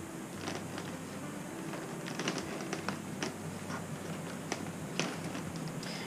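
Light scattered clicks and small scrapes of a hand nail-remover tool working under a saddle nail in the leather of a western saddle, prying it slowly up out of the saddle tree.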